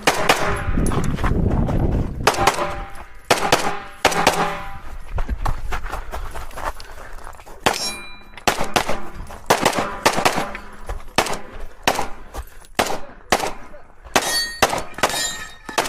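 Airsoft pistol firing an irregular string of shots, with BBs hitting steel targets that clang and ring after many of the hits.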